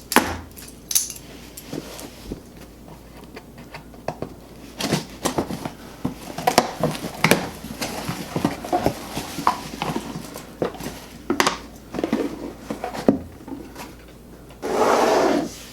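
A package being opened and handled by hand: a string of irregular clicks, taps and scrapes, with a louder rasping noise lasting under a second near the end.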